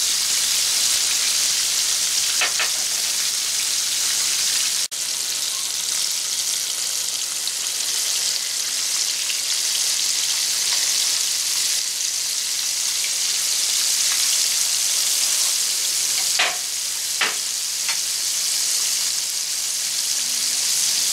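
Breaded flounder fillets deep-frying in hot oil in a cast-iron skillet: a steady high sizzle with a few short clicks. It cuts out for an instant about five seconds in.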